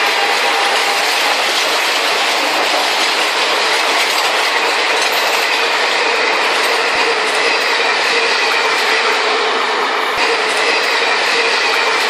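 Toy train running at speed on plastic track close by, a loud steady rattle of wheels and motor as the coaches pass. A horn sound dies away in the first second.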